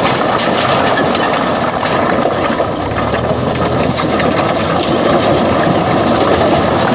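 Load of large river stones sliding and tumbling out of a tipping dump truck's raised bed, a continuous loud clattering and grinding of rock on rock and steel, with a low rumble underneath.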